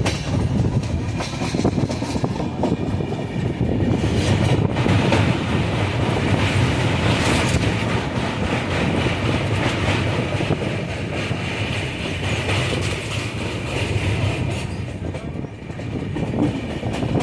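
Running noise of a moving train: a steady rumble of wheels on the track, continuing throughout with no pauses.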